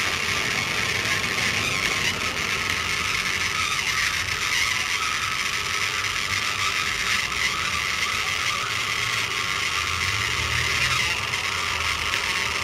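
Rain falling on a tent roof: a steady hiss with faint scattered ticks.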